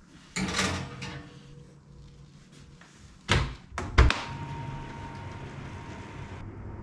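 Built-in oven being handled with an oven mitt: a clattering scrape about half a second in, then a thud, and about 4 s in a sharp bang of the oven door shutting, the loudest sound. A steady hum with a thin high tone follows.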